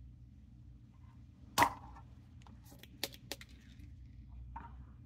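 Spring-loaded desoldering pump (solder sucker) firing with one sharp snap about a second and a half in, sucking molten solder off a transistor's legs on a circuit board, followed by two lighter clicks a moment later.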